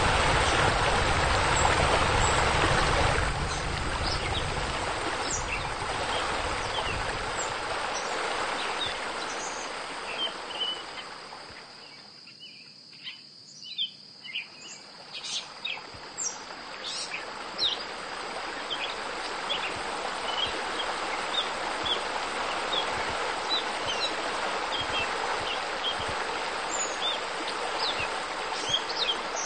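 Flowing water rushing steadily, with birds chirping in many short calls. The water sound fades to a lull about halfway through, leaving the chirps standing out, then builds again.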